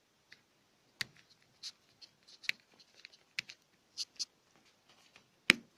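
Light clicks and taps of a micro-USB charger plug and loose wires being handled at a small charging board, with one sharp click near the end.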